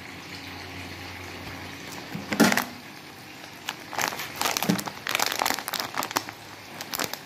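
Plastic bag of shredded mozzarella crinkling as it is picked up and handled, in short sharp crackles: one loud crackle about two and a half seconds in, then a busy run of crinkles from about four seconds on.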